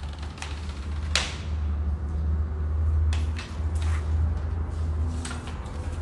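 A handful of sharp clicks and knocks from a metal door lever handle and latch being worked, the strongest about a second in, over a steady low hum.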